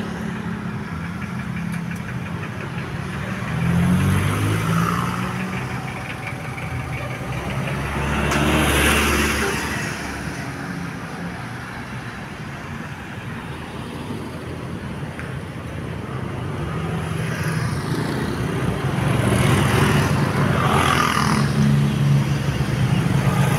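Road traffic: vehicle engines run steadily under the whole stretch, and vehicles pass by in three swells of noise, the last and longest near the end.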